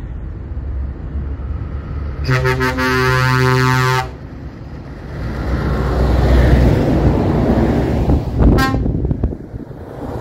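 Heavy lorries passing in a convoy with a deep engine rumble; about two seconds in, a truck air horn blares for nearly two seconds, and a second short toot sounds near the end.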